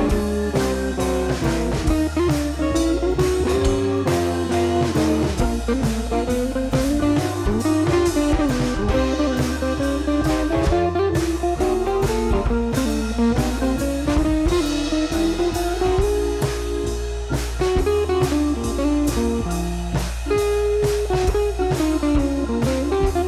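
Instrumental background music: a melody that slides up and down over a steady bass and a regular drum beat.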